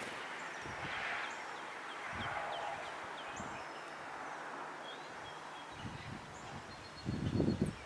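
Small songbirds chirping, with a quick run of short high notes early on and a thin held whistle later, over a steady outdoor hiss. Near the end, louder low rustling and bumping starts.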